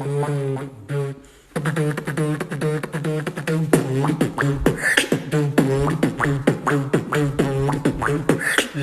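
Beatboxing: one voice humming a steady tone while sharp clicks and snare-like mouth hits keep a rhythm over it, with a brief break about a second in.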